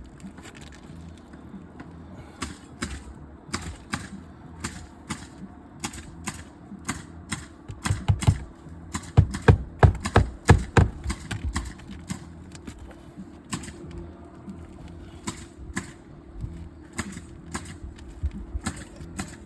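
Sharp, irregular clicks and taps, a few a second, from an old 3-tab asphalt shingle being worked back into place on the roof. They come thickest and loudest around the middle, over a steady low hum.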